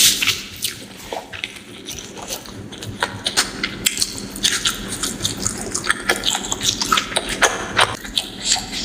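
Close-miked eating: chewing and wet mouth smacks on rice and fish curry, as many quick, irregular clicks.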